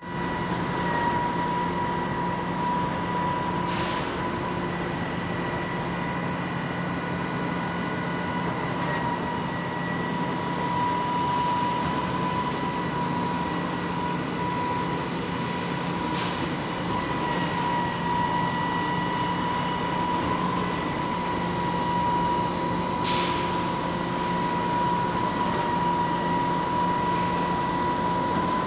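Machinery running steadily, with a constant high whine and a low hum over a noisy rumble; three brief sharp ticks break in at widely spaced moments.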